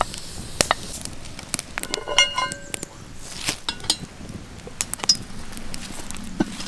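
Wood fire crackling and popping under a cast-iron Dutch oven, with metal clinks from the pot, its lid and the hanging chains. The loudest is a ringing metal clink about two seconds in.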